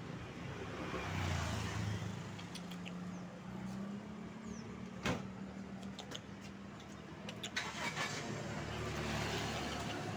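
A motor vehicle's engine running nearby as a steady low hum, with road noise swelling up twice. There is a sharp click about five seconds in and a few lighter knocks near eight seconds.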